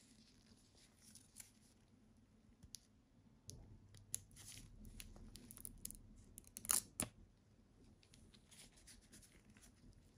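Faint rustling and crinkling of nitrile-gloved hands handling a wristwatch on a leather strap, with scattered small clicks and a pair of sharper crackles about two-thirds of the way through.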